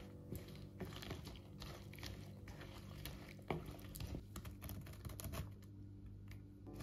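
Chopsticks stirring cut green peppers through egg batter in a ceramic bowl: faint, irregular small clicks and wet rustling of the vegetables, with the chopsticks now and then tapping the bowl.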